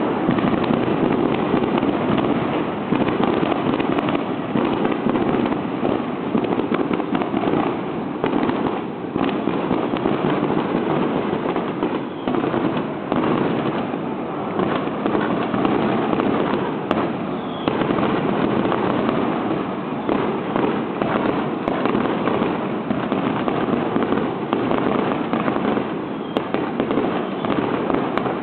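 Fireworks going off in a dense, unbroken barrage.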